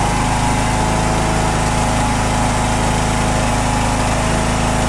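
Riding mower's Briggs & Stratton I/C engine running steadily, just started on a newly fitted aftermarket Walbro-style carburetor that replaces the original Nikki.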